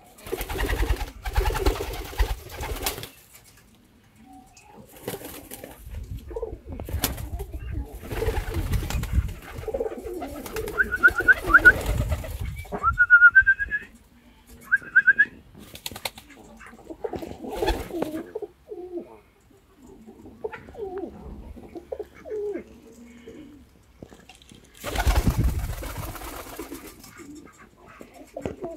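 Transylvanian double-crested tumbler pigeons cooing repeatedly, with several loud bursts of wing flapping. A few short high chirps come in the middle.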